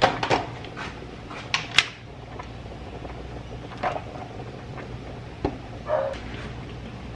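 Plastic food container handled over a metal pot: a few sharp clicks and knocks of the lid and tub as leftover rice is tipped into the pot.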